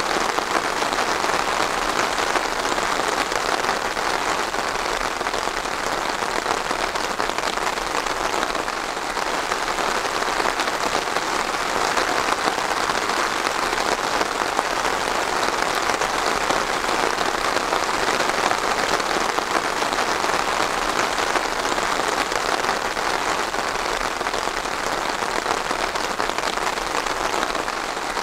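Steady rain falling, a dense even patter of drops on a hard surface.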